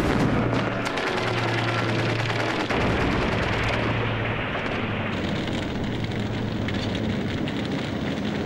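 Battle sound effects: rapid gunfire in the first second or so, then a continuous rumble of explosions with crackling, over a low steady hum.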